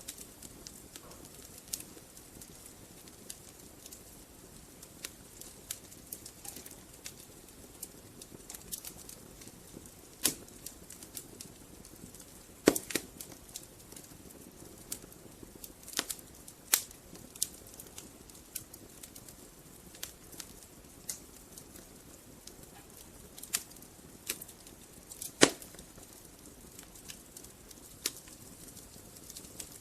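Wood fire burning in a fireplace: irregular crackling with scattered sharp pops over a low, steady rush of flame, a few pops much louder than the rest.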